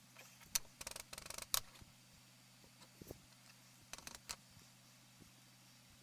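Short clicks and light rattling of craft supplies being handled on a work table, in a cluster about a second in and another about four seconds in.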